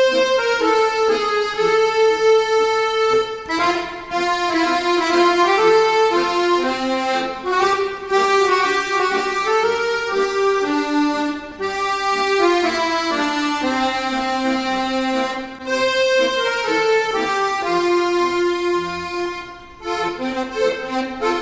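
Four piano accordions playing a tune together in held chords and moving melody lines, with brief breaths between phrases. Near the end the playing turns to short, detached notes.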